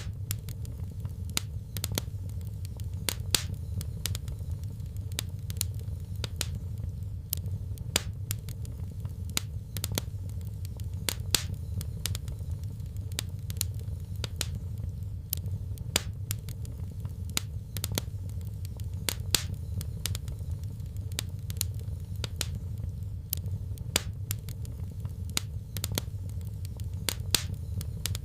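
Fireplace fire crackling, with irregular sharp pops and snaps, several a second, over a steady low rumble.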